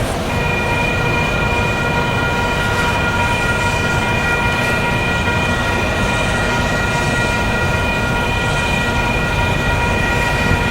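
Freight train passing close by with a steady rumble, and a steady high-pitched multi-tone sound that comes in just after the start and holds without a break.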